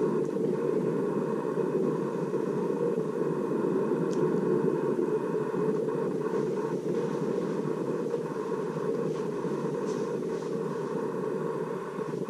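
Steady low rushing noise with a faint thin tone above it, the room tone of a quiet house picked up by an action camera, with a few faint light clicks.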